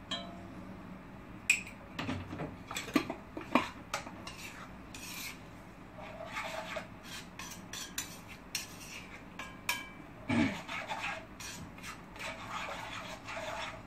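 A spoon scraping and clinking irregularly against a black kadai as salt is stirred into a thick coconut curry, with a louder knock about ten seconds in.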